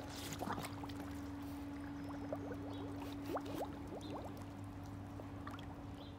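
Water gurgling and bubbling as air escapes from a sinking cardboard tissue box, a quick run of small bubble blips over the first few seconds, over a steady low hum.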